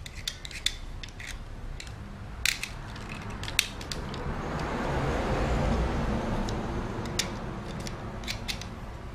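A sharp blade trimming the flash off a cast plaster of Paris bolt head: irregular sharp clicks and scrapes as bits are shaved and snapped off. A broad rushing noise swells up in the middle and fades away.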